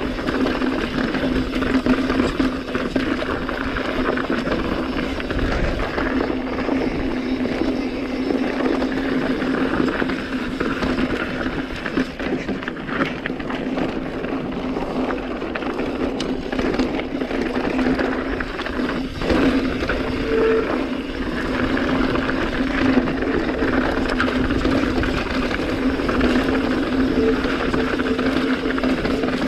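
Mountain bike riding down a loose, rocky dirt trail: tyre and trail noise with bike rattle, over a steady droning hum.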